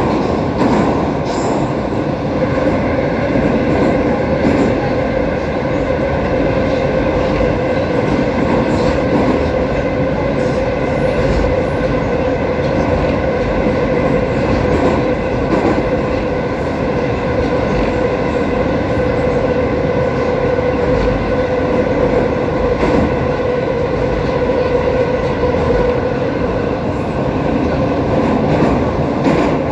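Metro train running at speed through a tunnel, heard from inside the carriage: a loud, steady rumble of wheels on rails with a humming tone held underneath.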